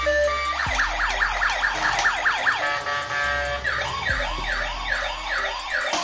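Electronic siren from a toy police car, starting after a short beeping tune. It begins as a fast up-and-down yelp about five times a second, then after a moment of steady tones switches to a slower wail about twice a second.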